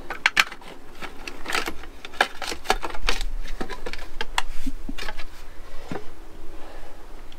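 Irregular sharp clicks, taps and light knocks of small electrical parts and hand tools being handled in a camper's wiring compartment, several a second.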